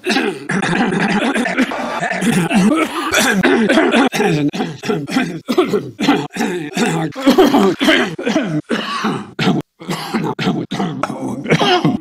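A man coughing into his fist in repeated bouts, mixed with throat clearing, with abrupt cuts between the bouts.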